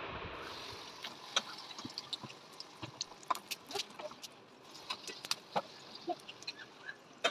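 Samosas deep-frying in hot oil in a kadai: irregular crackling and popping.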